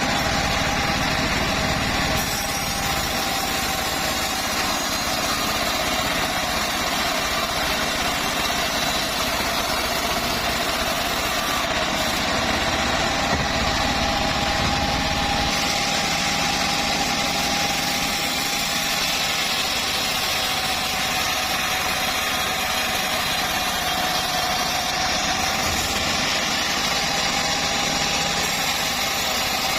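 Homemade bandsaw mill running steadily: a constant mechanical drone with a high whining tone that wavers slightly in pitch.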